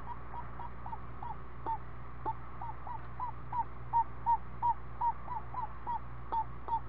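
Screech owl giving a long series of short, evenly spaced hoot-like notes, about three a second, growing louder toward the middle, over a steady low electrical hum.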